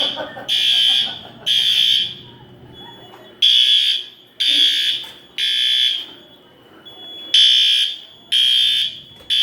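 System Sensor fire alarm horns sounding the evacuation signal in the three-pulse temporal pattern. Each group is three short, shrill blasts a second apart, followed by a pause of about a second and a half, and the pattern repeats about every four seconds.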